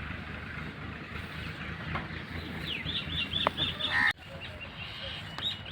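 A bird calling in a quick run of about seven short, high repeated notes about three seconds in, followed by a brief louder call, over steady background noise.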